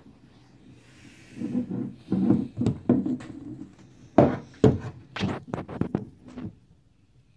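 Hard plastic parts of a 3D-printed spine model being handled: rubbing and knocking, then a run of sharp clicks and taps as a piece is taken off and set down on a desk, loudest around four to five seconds in.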